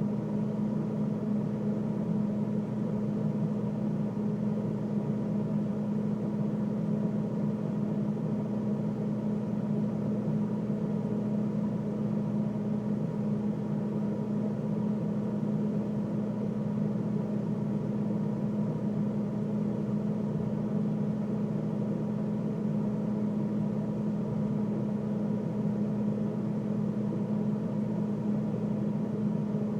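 Freezer running: a steady, unchanging machine hum with one strong low tone over a dull whirring noise.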